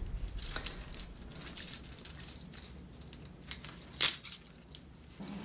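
Metal toy handcuffs clinking on their chain as they are handled, with scattered small metallic clicks and jingles. The loudest is a sharp clack about four seconds in.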